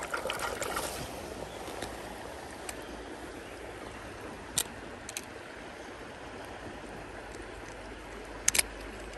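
Swollen creek water running steadily. There is some rustling handling noise in the first second, a sharp click about four and a half seconds in, and a quick double click near the end.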